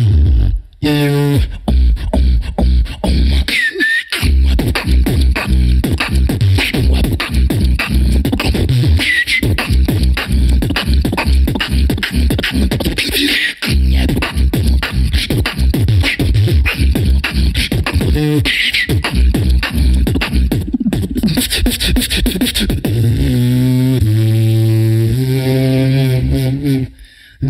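Human beatboxing into a microphone: fast kick drums, snares and clicks in a driving groove, broken by a few short stops, with brief rising squeaks on top. Near the end the drums give way to a hummed bass line that steps between notes.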